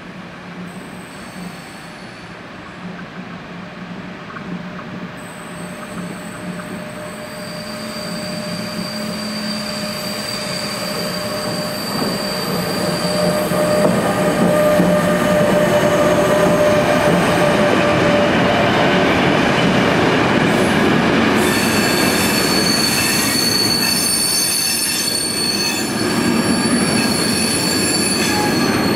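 A CargoNet CE 119 electric locomotive hauling a container freight train approaches, growing steadily louder with a steady whine, and passes about halfway through. Its wagons then roll by, and from about two-thirds of the way in the wheels squeal on the curve.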